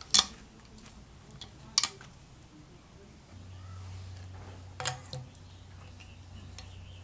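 A few sharp metallic clicks and knocks of hand tools, struck separately, with a steady low hum that starts about three seconds in.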